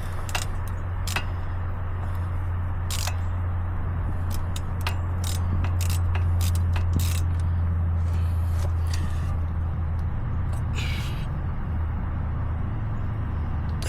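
Scattered, irregular sharp metal clicks and clinks of hand tools and hub bolts during a front wheel hub replacement, over a steady low hum.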